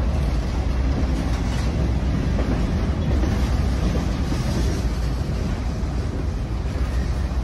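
Freight train rolling, a steady low rumble with wind buffeting the microphone.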